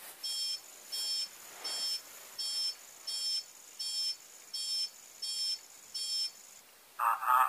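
Computer beeping repeatedly as an access-denied alert, a short high-pitched beep about every 0.6 seconds. The beeps stop shortly before the end, where a louder warbling sound begins.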